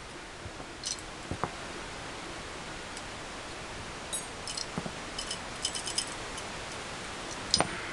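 Small metallic clicks and taps of steel M1911A1 pistol parts being handled and worked apart by hand, with a run of light ticks in the middle and one sharper click near the end.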